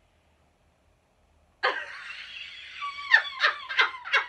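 Hearty laughter. After a second and a half of quiet, a long high-pitched squeal breaks into rapid bursts of laughing, about three a second.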